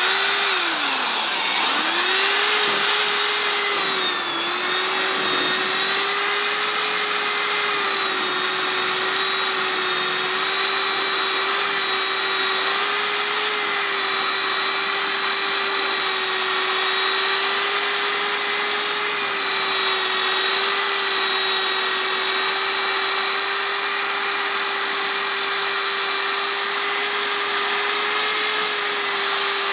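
A cheap, ungeared electric drill running steadily at high speed with a constant whine, spinning a 3D-printed frother in water and detergent to whip it into foam. Its pitch sags briefly about a second in and again slightly around four seconds, then holds steady.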